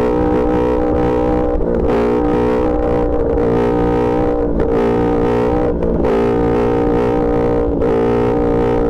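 Yamaha R1's inline-four engine running loud at a steady high rpm, holding nearly the same pitch, with a few brief dips and wobbles in the note.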